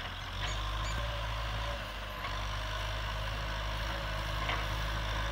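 Kubota M6040 tractor's diesel engine running steadily under way, a low hum with a couple of faint clanks. It gets louder about half a second in as the tractor approaches.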